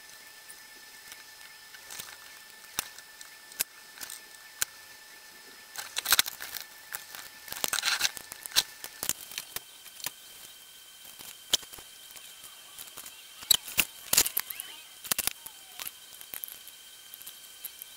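Scattered clicks, knocks and rubbing from hands handling a turntable, its tone arm and wiring on a workbench, with a denser run of knocks and rubbing about six to eight seconds in as the turntable is turned over.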